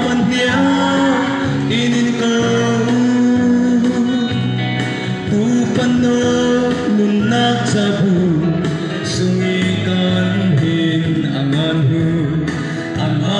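A young man singing a gospel song into a microphone over backing music, his voice holding long melodic notes.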